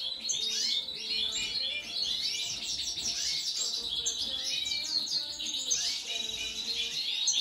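Many small cage birds chirping and twittering at once: a dense chorus of quick high-pitched chirps and trills that overlap without a break.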